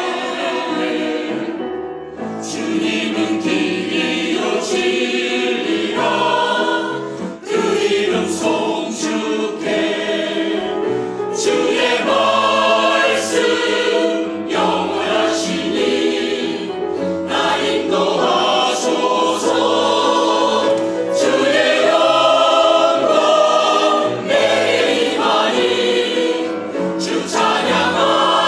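Mixed church choir of men and women singing a Korean sacred anthem in parts, with short breaks between phrases.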